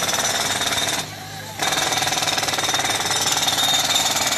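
Pneumatic jackhammer hammering rapidly as it breaks up pavement. It stops for about half a second about a second in, then starts again.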